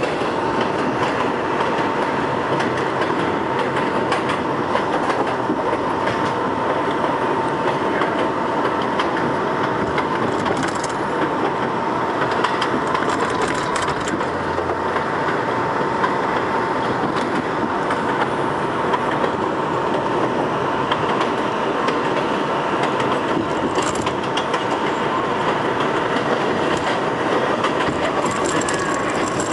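R62A subway car running at speed on elevated track, heard from inside the car: steady rumble and rail noise with a constant high whine and scattered clicks.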